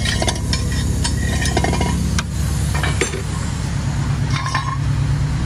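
Light metallic clinks and rattles of exhaust parts and tools being handled, over a steady low hum.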